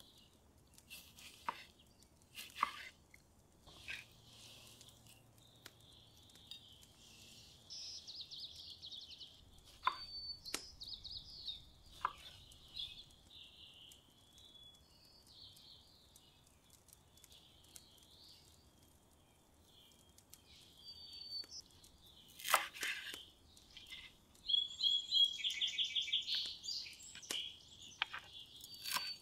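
Small birds chirping and singing in short bursts, with a chef's knife striking a wooden cutting board a few separate times, the sharpest strike well past halfway.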